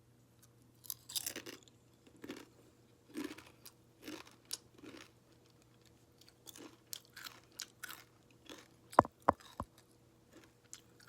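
Close-miked crunching and chewing of Hawaiian kettle-style potato chips: crisp crunches about once a second at first, then softer crackles and a few sharp cracks near the end.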